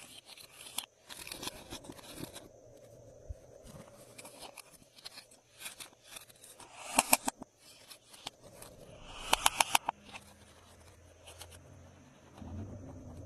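Glossy slime being pressed and stretched by hand, giving sticky clicks and pops, with two quick flurries of clicks about seven and nine and a half seconds in.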